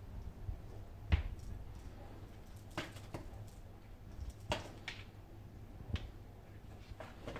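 Kittens playing on a hardwood floor: a handful of short, sharp taps and knocks at irregular moments, the loudest about a second in, over a low rumble.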